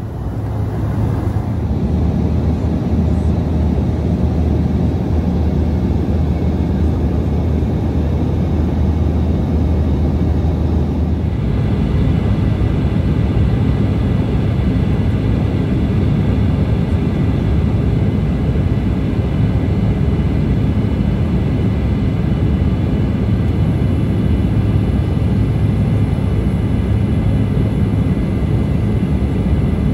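Steady cabin noise of an Embraer 175 airliner in flight: a loud even rush of air and twin-turbofan engine noise over a low hum. About eleven seconds in, the sound abruptly changes, the low hum giving way to a broader rush with faint high whines.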